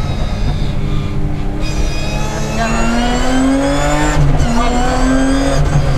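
BMW 325 Group A rally car's straight-six, heard from inside the cabin, pulling hard: the revs climb, drop sharply at an upshift about four seconds in, climb again, then ease off near the end.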